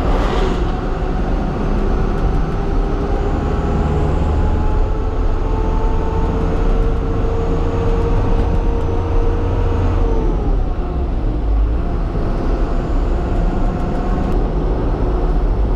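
Truck engine running while the truck drives, its pitch climbing slowly for about ten seconds and then dropping away.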